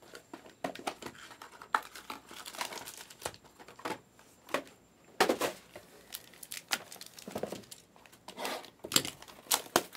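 Packaging of a Panini Select trading-card hobby box being handled and opened by hand: irregular crinkling and tearing, loudest about five seconds in and again near the end.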